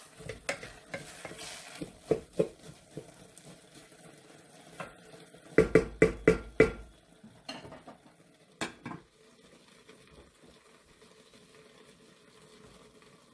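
Wooden spatula stirring and turning cooked rice in a rice cooker's nonstick inner pot: soft scraping with scattered light knocks, then a quick run of about five sharper knocks of the spatula on the pot about halfway through. One more knock follows shortly after, then only faint background hum.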